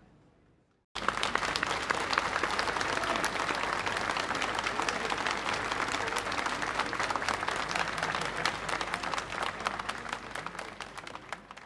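Large audience applauding: dense clapping starts abruptly about a second in and fades away near the end.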